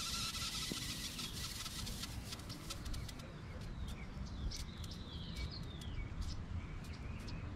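A hiss of escaping air fades out about three seconds in. Birds chirp after that, with scattered light ticks.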